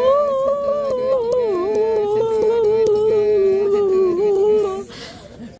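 A high-pitched human voice holds one long, slightly wavering scream for nearly five seconds, then breaks off.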